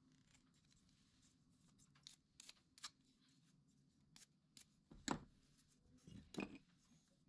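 Quiet hand-work sounds: a handful of short clicks and scraping strokes, two louder ones about five and six and a half seconds in.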